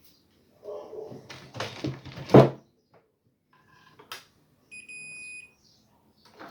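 Clattering as parts and tools are handled on the subwoofer, with one sharp clack about two and a half seconds in, then a click and a short steady high electronic beep lasting just under a second.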